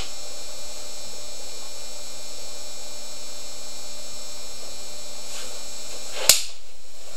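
Steady electrical mains hum and hiss, a buzz made of many steady tones. A single sharp click comes about six seconds in.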